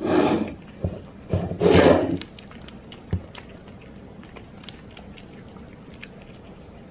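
A cat hissing in two short bursts as one cat swipes at the other over a shared food bowl, with a few light knocks; then faint clicks of the cats eating.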